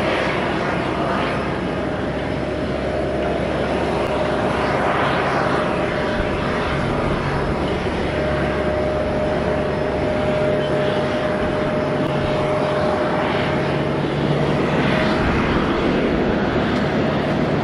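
Jet airliner noise on the apron: a steady whine over a low rumble, with the whine standing out most strongly through the middle and easing off near the end.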